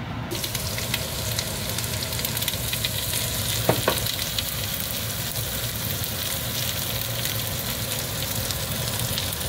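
Diced onions sizzling in hot melted butter in an enamel pot: a steady crackle and hiss of frying that starts suddenly as the onions go in. Two light knocks come a little under four seconds in.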